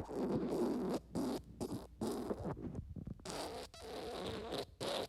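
Diarrhea sound effect: wet flatulence in a string of noisy bursts broken by short gaps.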